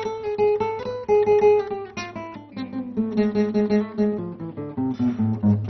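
Classical acoustic guitar played solo, fingerpicked: a melody of single plucked notes stepping downward, then quicker repeated picking on lower notes from about three seconds in.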